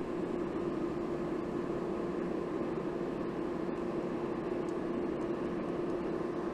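Forge running steadily: a constant rushing noise with a steady hum underneath.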